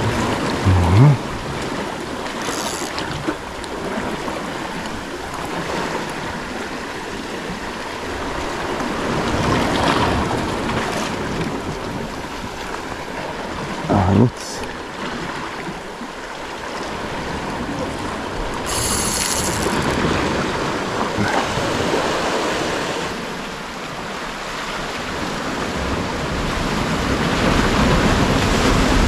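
Sea waves surging and washing against rocks, rising and falling in swells every several seconds, with a couple of short knocks and a brief high hiss.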